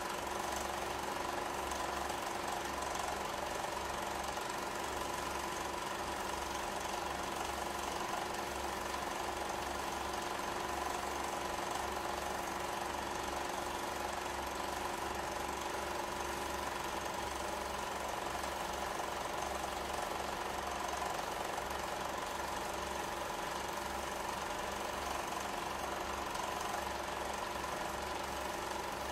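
A small machine running steadily, with a fast mechanical clatter under a constant whir and hum.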